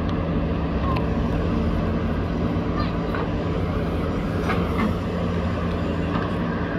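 Diesel engines of backhoe loaders running steadily under load while digging and loading dirt, with a few faint knocks.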